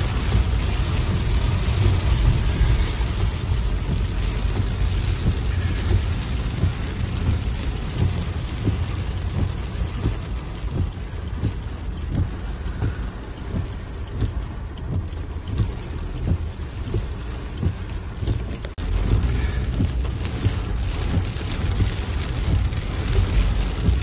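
Heavy rain pelting a car's roof and windshield, heard from inside the moving car over the low rumble of the car, with many sharp drop impacts.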